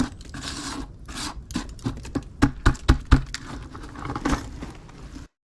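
Scrap metal finds being handled: scraping, then a quick run of sharp knocks and clinks about two to three seconds in.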